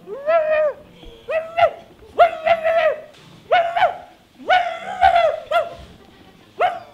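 Small dog barking and yelping repeatedly during rough play: a series of high, drawn-out yelps, about one a second.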